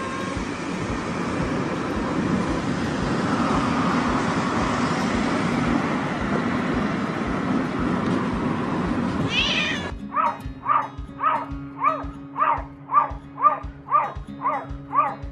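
A cat meowing once over a steady rushing noise of a car cabin on the move. Then a cat gives a quick run of short meows, about two a second, each dropping in pitch, over a low steady hum.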